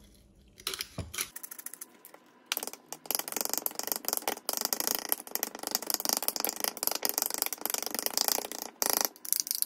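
A metal spoon beating eggs in a ceramic bowl: rapid clinking strokes against the bowl start about two and a half seconds in and stop shortly before the end. A few light clicks come before them.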